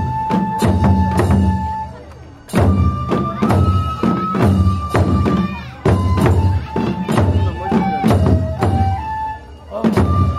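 Japanese festival taiko ensemble: bamboo transverse flutes (shinobue) play a held, stepping melody over small barrel drums and a large taiko struck with sticks in a steady rhythm. The drumming drops out briefly about two seconds in, then comes back in.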